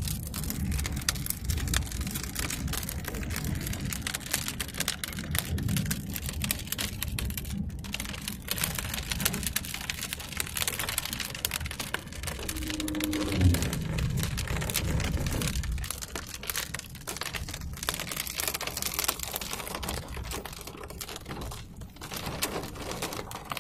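Rain pattering on a car's windshield and body, many small drop hits, over a low rumble of the moving vehicle that fades about two-thirds through. A brief low falling tone sounds about halfway through.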